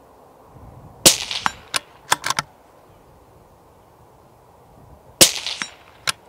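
Two shots about four seconds apart from a Steyr Zephyr II bolt-action rimfire rifle in 17 HMR fitted with a sound moderator: each a sharp supersonic crack, followed by quick metallic clicks as the bolt is worked to chamber the next round.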